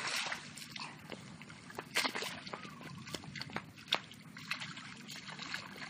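Shallow muddy water sloshing and splashing as hands grope through it, with a few sharp splashes, the strongest about two and four seconds in.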